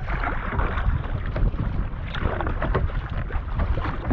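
Wind buffeting the microphone while a sit-on fishing kayak is paddled through choppy sea, with irregular splashes of the paddle blades and of water against the hull.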